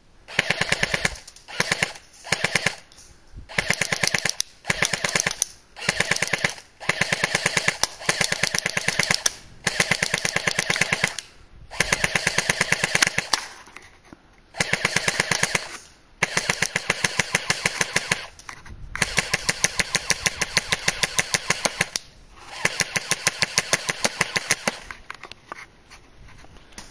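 Electric airsoft Thompson M1A1 submachine gun firing repeated full-auto bursts, rapid mechanical clatter of shots, some bursts brief and some lasting a few seconds, with short pauses between. The shooter thinks its battery is dying.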